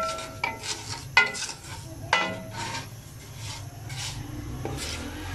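A spatula stirring semolina in ghee in a metal pot, knocking against the pot's side with about four ringing clinks in the first two and a half seconds, then scraping more steadily.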